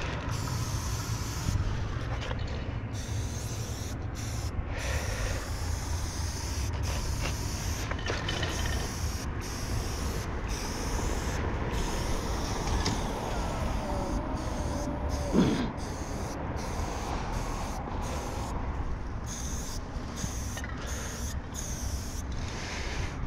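Aerosol spray paint can hissing in repeated short bursts with brief breaks between them, over a steady rumble of street traffic. A brief falling whine sounds about fifteen seconds in.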